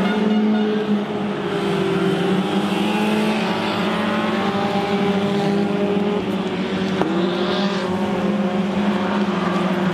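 Small hatchback stock car engines running hard on a dirt oval, a steady drone whose pitch rises and falls a little as the cars work through the turns.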